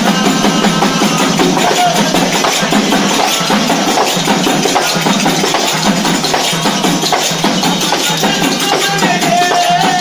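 Bhajan: devotional group singing over steady, rhythmic hand percussion.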